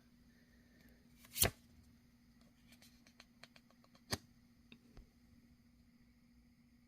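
Pokémon trading cards being handled and slid one behind another during a pack opening, with a sharp flick about a second and a half in, another around four seconds, and a run of light ticks between.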